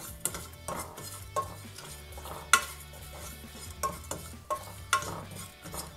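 A utensil stirring spices as they roast in a pan, scraping and clinking against the pan about eight times, the loudest clink about two and a half seconds in.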